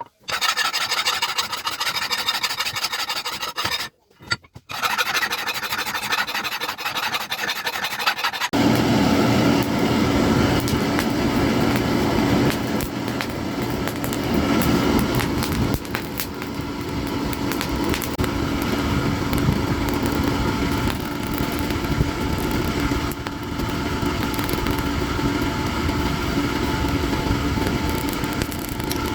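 Hand file rasping across a leaf-spring steel cleaver blade in repeated strokes for about the first eight seconds. It then cuts abruptly to a loud, steady machine running with a low hum.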